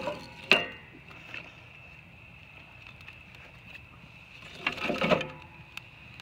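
Kindling fire of wood shavings and split sticks crackling as it catches on a fire-pit grate, with scattered small pops. There are two sharp snaps near the start and a louder cluster of knocks and crackles about five seconds in.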